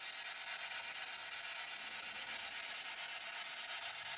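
Steady radio static hiss from a spirit box scanning FM frequencies, thin and without bass as if from a small speaker, with no voice coming through.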